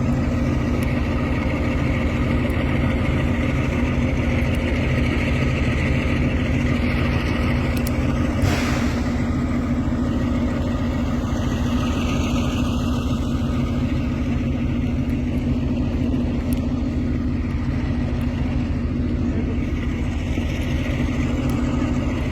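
An engine running steadily at idle, a constant low drone with no change in speed. One sharp click about eight and a half seconds in.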